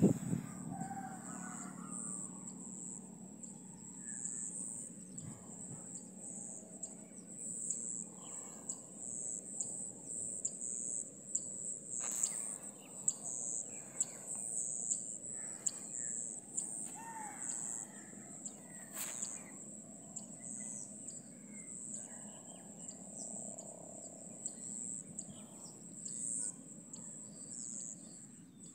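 Insects chirring in a steady high-pitched drone, with faint bird chirps and two sharp clicks, the second one later in the clip.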